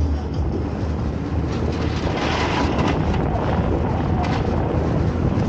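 Small motorboat under way: its engine drones steadily while water rushes and splashes past the hull, with wind buffeting the microphone.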